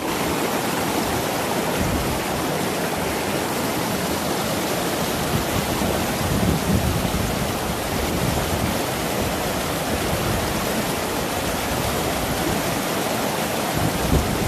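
Steady rushing of water in a mountain stream.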